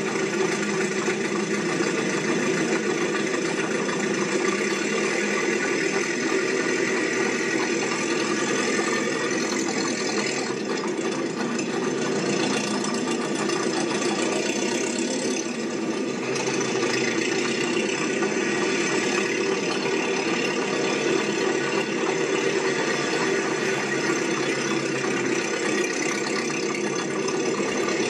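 Steady mechanical running noise with a rattling clatter, like a motor or engine running.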